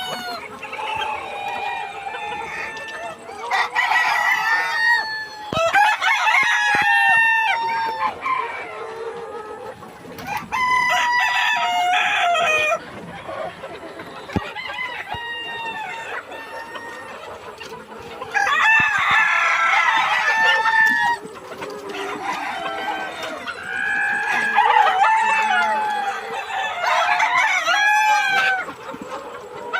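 A flock of desi (native village breed) roosters crowing in overlapping bouts, with hens clucking between the crows.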